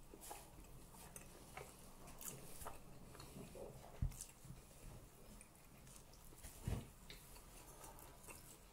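Quiet eating sounds at a table: faint chewing and small scattered clicks of cutlery and plates. Two low thumps come about four and about seven seconds in, the second the loudest.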